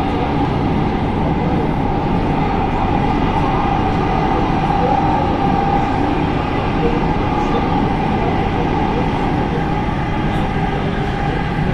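Hyundai Rotem electric commuter train running, heard inside the carriage: a steady, loud rumble of the running train with a constant whine over it.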